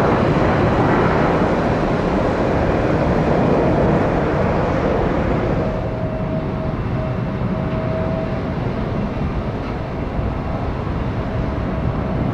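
Jet engine noise of an Alaska Airlines Boeing 737 climbing away after takeoff, a dense rumble. About halfway through it gives way to a lower, steadier jet rumble with a thin steady whine from airliner engines at taxi.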